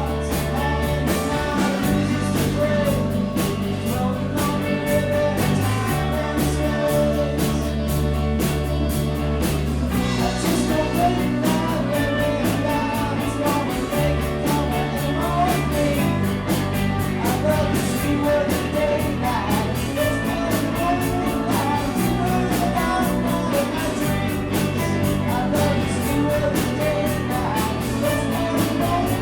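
Rock band playing live, with electric guitars, bass guitar, drums and singing. The bass notes change every couple of seconds under a lead line with bending notes.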